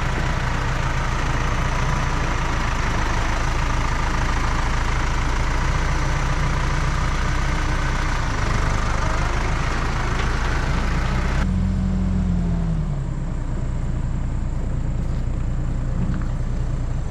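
A vehicle engine idling steadily. About two-thirds of the way through the background hiss drops away abruptly and the engine note briefly falls in pitch.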